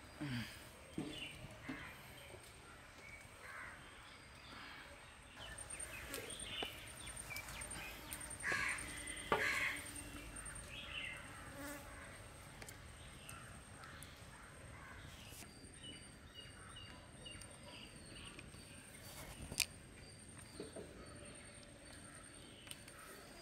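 Faint outdoor ambience: insects buzzing, with birds calling, the loudest of them crow-like caws about eight to ten seconds in, and a few scattered small clicks.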